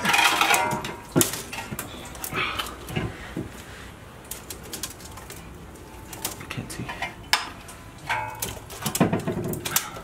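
Strained grunting as a Dodge Hemi V8 cylinder head is lifted off the engine block, loudest at the start, with sharp metal knocks about a second in and again near seven seconds in.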